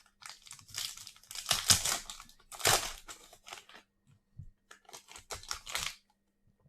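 A foil Donruss Optic baseball card pack being torn open and crinkled, in rustling bursts over about three seconds. It pauses, then crinkles again briefly about five seconds in.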